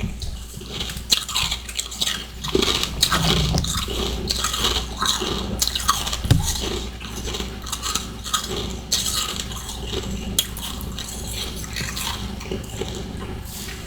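Close-up chewing of powdery freezer frost and ice chunks: crisp, crackling crunches that come thick and fast, then thin out over the last few seconds.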